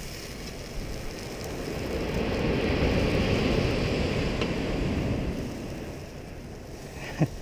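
Wind and surf noise, a steady rush that swells for a few seconds in the middle and then eases, with one short tap near the end.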